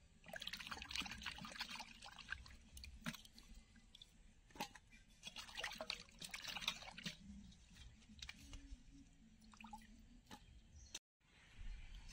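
Hands swishing and rinsing ash gourd pieces in a steel bowl of water: faint splashing and dripping with a few short sharp knocks, washing off the lime from an overnight soak. The sound stops abruptly near the end.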